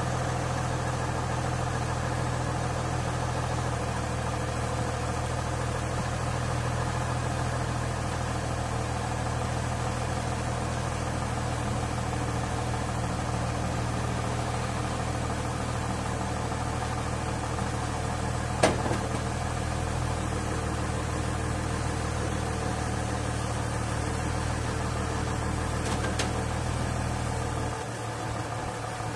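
A steady, low mechanical hum like an engine running, with a single sharp click or knock about two-thirds of the way through; the low hum drops away shortly before the end.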